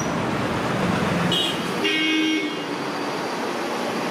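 Road traffic noise with a vehicle horn tooting briefly twice, the longer toot about two seconds in.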